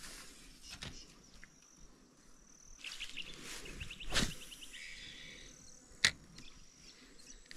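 A light spinning rod swishes through a cast about four seconds in. A sharp click follows near six seconds as the spinning reel's bail is closed, ready to retrieve.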